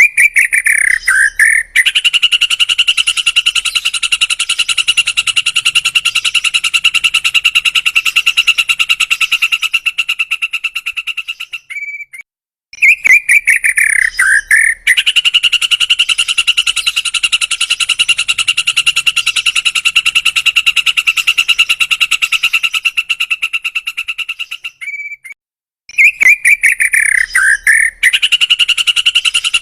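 White-rumped shama (murai batu) singing the same loud phrase over and over, three times about thirteen seconds apart. Each phrase is a falling whistle lasting about two seconds, then a long, fast, even trill of about ten seconds, then a short pause.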